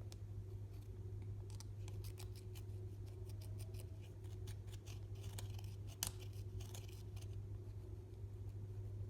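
Slime being worked and mixed by hand, giving a quick run of small crisp clicks and pops, with one sharper snap about six seconds in. A steady low hum sits underneath.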